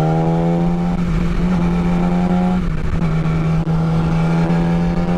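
2009 Yamaha R6's 600 cc inline-four engine running under way, its note climbing slowly as the bike accelerates, with a brief break in the note about two and a half seconds in. Wind noise on the helmet mic runs under it.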